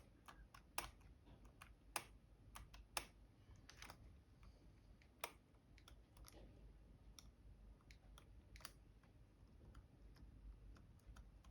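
Faint, single clicks of laptop keyboard keys pressed one at a time at an uneven pace, about a dozen in all, on a replacement Dell Latitude E7440 keyboard being tested. One of its keys sticks down when pressed and is slow to come back up.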